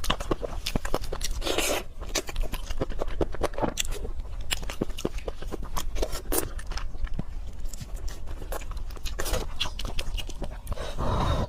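Close-miked eating sounds of pork leg curry with white rice: chewing with a rapid, irregular run of wet mouth clicks and smacks.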